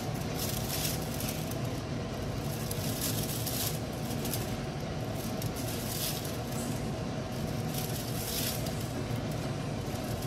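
Steady low hum of background machine noise, with a few faint soft touches as gulab jamuns are set one by one into custard in a glass dish.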